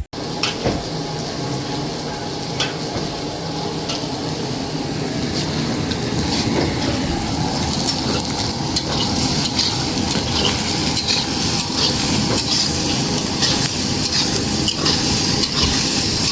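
Goat meat sizzling as it fries in a pan, with a utensil stirring it and clicking against the pan now and then.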